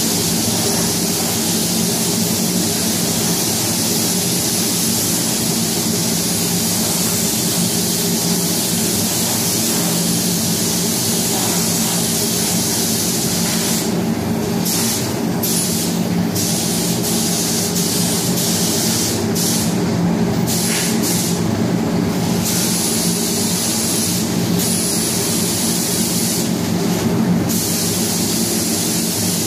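Gravity-feed compressed-air spray gun hissing steadily as red paint is sprayed, the hiss stopping briefly several times in the second half. A steady low mechanical hum runs underneath.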